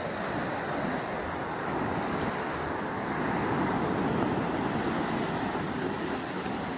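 Ocean surf washing on the beach: a steady rushing noise that swells a little midway through.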